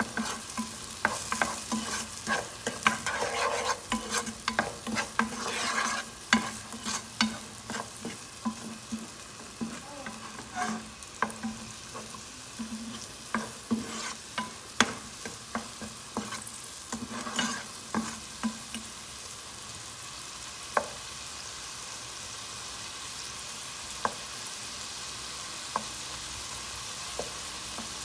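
Wooden spoon stirring peas frying in butter in a nonstick pan: frequent scrapes and knocks against the pan for about the first twenty seconds, then only a few, over a steady sizzle.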